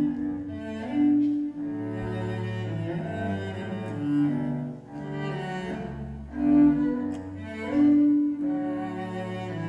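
Live band playing an instrumental passage led by bowed cello and violin, with a bass underneath. The strings hold long notes in phrases that swell and fall back every second or two.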